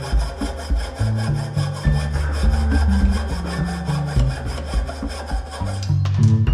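Fine-bladed hand saw cutting through a thin brass tube in quick, even strokes. The sawing stops near the end as the tube is cut through. Background music plays underneath.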